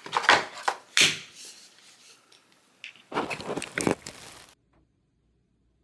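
Handling noise close to the microphone: a few sudden knocks and rubbing clatters in the first second, and another cluster about three seconds in. Then the recording cuts off to silence about four and a half seconds in.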